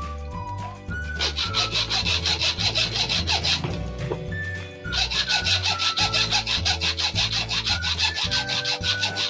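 Fast back-and-forth abrasive rubbing strokes, about five a second, on a desk-fan part being repaired, starting about a second in, pausing briefly near the middle and resuming. Background music with a steady bass line plays throughout.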